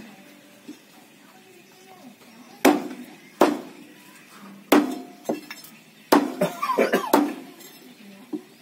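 Heavy meat cleaver chopping raw chicken on a wooden stump block: about five sharp, loud chops spaced roughly a second apart, with a quicker run of smaller knocks between the last two.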